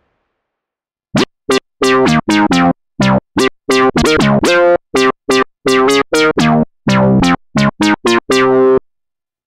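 Moog Subsequent 37 analog synthesizer playing a fast run of short, detached notes, starting about a second in, with a couple of notes sliding in pitch.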